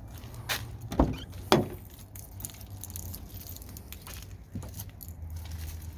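Two sharp knocks about half a second apart, the second as loud as the first, over a low steady hum, with a few faint clicks.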